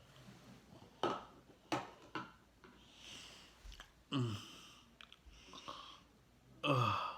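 A person breathing and giving short voiced exhales after gulping soda. There are two sharp clicks about a second in, a breathy exhale around three seconds, then two brief low grunts that fall in pitch, about four seconds in and near the end.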